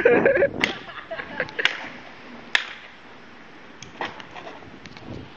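Metal crutches swung like swords and clashing together: a few sharp clacks, the clearest about half a second, one and a half and two and a half seconds in, with fainter knocks near four seconds. A short burst of voice at the very start.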